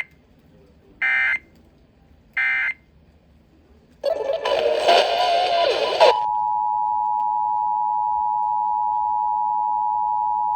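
Emergency Alert System end-of-message data bursts: the tail of one short warbling digital tone burst right at the start, then two more identical bursts about 1.3 s apart. After a two-second stretch of noisy audio from about four seconds in, the steady two-tone EAS attention signal starts about six seconds in and holds.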